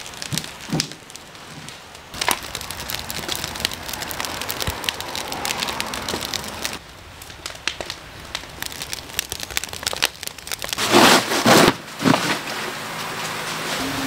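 Split firewood knocking and clattering, then a wood fire crackling. About eleven seconds in there is a loud rustling and tearing.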